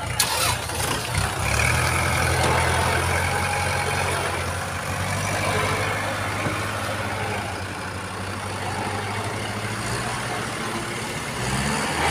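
Kubota tractor's diesel engine running steadily, easing slightly midway and picking up near the end.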